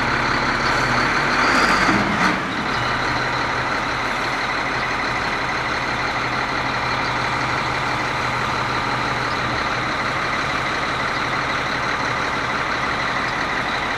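Wheel loader's Shangchai SC11 (CAT 3306B-type) six-cylinder diesel running steadily, with a steady high whine above it. About two seconds in the sound swells briefly and then cuts off with a sharp burst.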